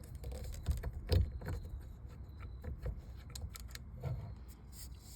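Scattered small metallic clicks and light knocks of hand tools and screws being handled while the steering wheel hub is taken apart, over a low handling rumble.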